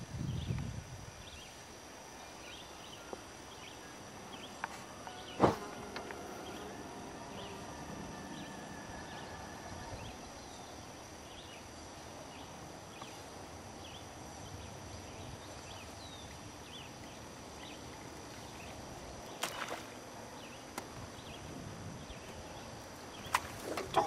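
Quiet open-air lake ambience with faint, short high chirps repeating irregularly over a steady background hiss. A single sharp knock comes about five seconds in, a lighter one near twenty seconds, and a louder burst of noise just at the end.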